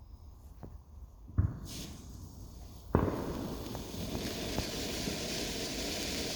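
Fireworks going off: a sharp bang about a second and a half in, then a louder one about three seconds in, after which a steady hissing crackle carries on.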